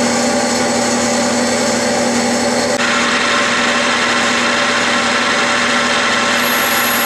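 Clausing metal lathe running, its tool taking a light pass on a pulley hub: a steady machine hum with the hiss of the cut. The sound turns abruptly brighter and harsher a little under three seconds in.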